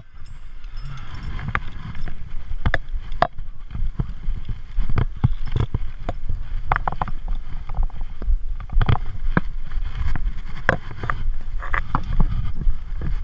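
Zip-line trolley running along a steel cable: a steady low rumble with wind on the microphone and many irregular sharp clicks and knocks.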